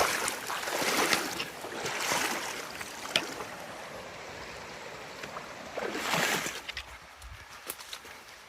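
A hiker wading across a shallow stream in his shoes, feet splashing through running water. There is a louder surge of splashing around six seconds in, and it grows quieter toward the end.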